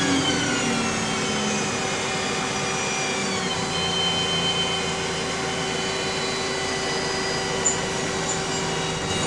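Bus engine and Voith automatic gearbox heard from inside the bus: a whine that falls in pitch in the first second and again about three seconds in, as the bus slows or changes gear, then holds steady over the running noise.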